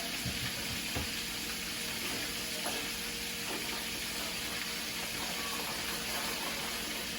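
Food frying in hot oil in a pan, a steady sizzle, with a few faint clicks and knocks.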